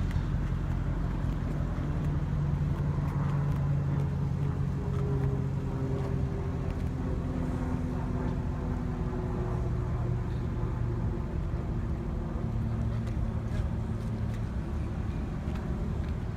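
Car driving: a steady low engine hum with road rumble, the engine note shifting in pitch a few times.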